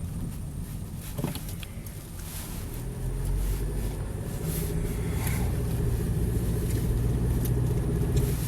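Car engine and road noise heard from inside the cabin, growing louder about three seconds in as the car speeds up, with a single click about a second in.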